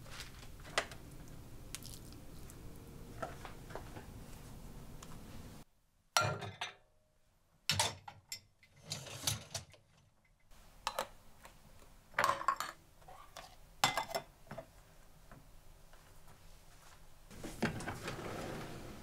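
Kitchenware being handled: a dishwasher's wire rack clatters and clinks several times as it is slid in and out, and a kitchen drawer slides open near the end.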